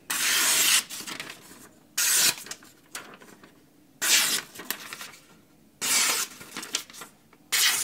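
Freshly sharpened aogami carbon-steel bunka knife slicing down through a magazine page in a paper test of the edge. Five quick cuts, about every two seconds, each a brief papery rasp.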